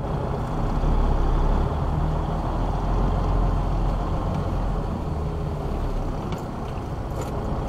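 Semi truck's diesel engine running at low speed, heard from inside the cab as a steady low rumble that is a little louder in the first few seconds. A few faint clicks come near the end.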